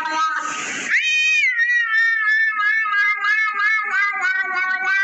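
A long, high, cat-like yowl that rises sharply about a second in, then holds and warbles with quick wavering pulses.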